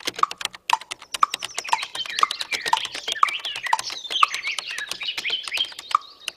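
Rapid computer keyboard typing, with birds chirping in the background and a clock ticking about twice a second.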